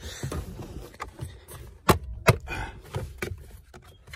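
Plastic dashboard trim in a car's footwell being handled and pulled out: scattered light knocks and rustles, with two sharp clicks about two seconds in, half a second apart.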